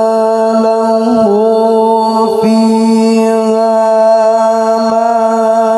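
A man's voice in melodic Quran recitation (tilawah), holding one long, steady note with slight ornamental pitch shifts.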